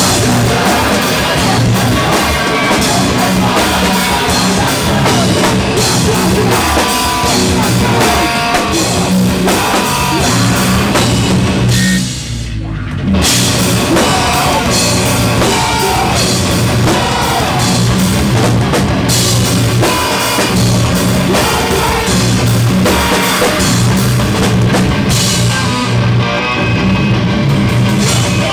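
Live heavy rock band playing loud: drum kit with cymbals, electric bass and guitar. The music briefly drops out about twelve seconds in, then comes straight back in.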